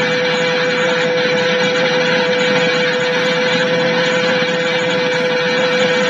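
McSchan lumber-mill whistle blowing one long, loud, steady note with a strong airy rush around it.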